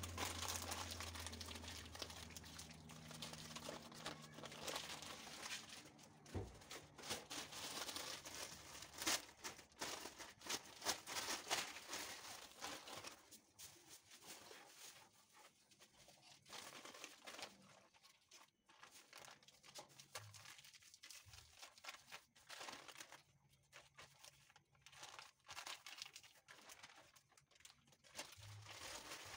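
Paper crinkling and crackling as a crumpled magazine page is balled up and dabbed against a painted board, then plastic wrap crinkling as it is pressed on; the crackle is dense for the first dozen seconds and sparser afterwards. A low hum sits under the first few seconds.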